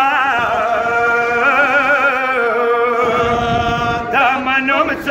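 A man singing a Pashto nohay, a Shia mourning lament, holding long notes with a wavering pitch.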